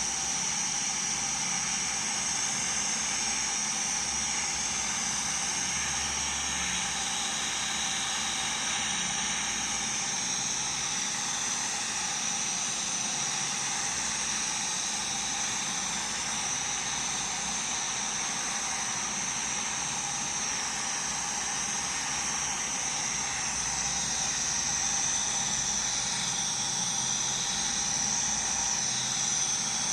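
Electric welding arc burning steadily, a continuous hiss.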